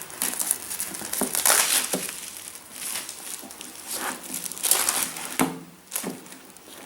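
Packaging crinkling and rustling in irregular bursts, with a few sharper crackles, as the contents of a craft kit box are pulled out.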